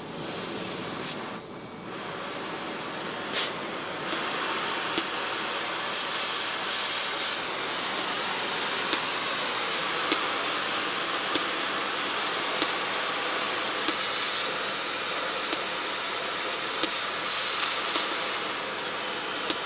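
Oxyacetylene cutting torch flame burning with a steady hiss that grows louder about four seconds in, with a few small clicks scattered through it.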